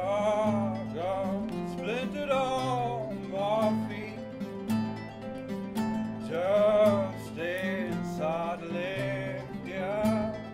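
Live acoustic folk band playing: strummed acoustic guitars with double bass and cello holding low notes, and a melody rising and falling in phrases above them.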